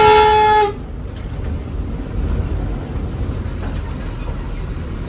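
A vehicle horn blares at one steady pitch and cuts off under a second in. After it comes the steady low rumble of a moving bus's engine and road noise, heard from inside the cabin.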